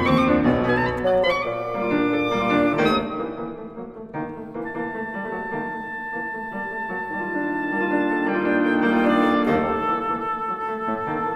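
Oboe, bassoon and piano playing contemporary chamber music. Busy, quick runs fill the first few seconds, then from about four seconds in a long high note is held over moving lower parts.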